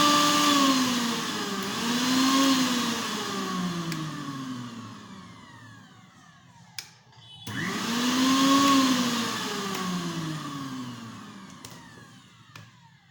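Mixer grinder (mixie) powdering dry coriander seeds, dry ginger and black pepper, run in pulses. The motor whine rises as it starts, dips and picks up again, then falls away. After a brief stop with a click about seven seconds in, it starts again and winds down with a falling whine.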